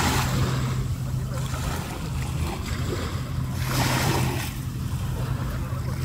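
Small waves breaking and washing up on a sandy shore, swelling twice about four seconds apart, over a steady low hum.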